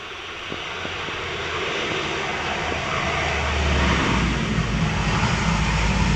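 Dash 8 twin turboprop's engines and propellers, a rushing roar with a deep rumble underneath, growing steadily louder as the aircraft lands.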